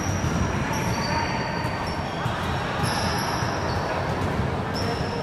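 Basketball game in a large gym: the ball bouncing on the hardwood court as players run, over a steady low rumble, with faint high-pitched tones coming and going.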